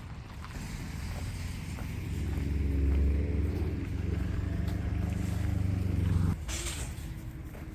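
A motor vehicle's engine running with a low hum that builds up, holds steady for a few seconds, then cuts off abruptly about six seconds in, followed by a brief hiss.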